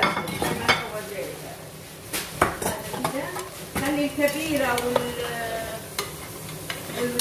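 A metal spoon stirring chicken and spices in an aluminium pressure-cooker pot over a gas flame, with the contents sizzling. The spoon knocks against the pot wall in several sharp clinks.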